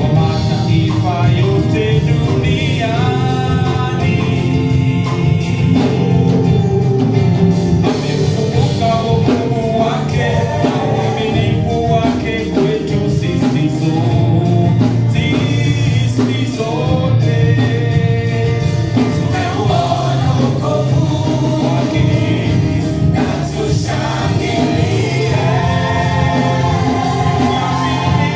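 Gospel worship song with singers and a steady bass accompaniment.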